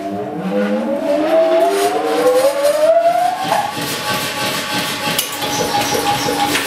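The electric drive of a 200-weight Massey clear-space self-contained air power hammer starting up, with a rising whine as motor and compressor come up to speed over about three and a half seconds, then running steadily. A single clank comes about five seconds in.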